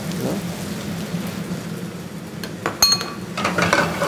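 A single metallic clink on a frying pan, with a brief ringing tone, a little before three seconds in. Then the pan is tossed over a gas burner, and the apple slices and breadcrumbs slide and rustle across it. A steady low hum runs underneath.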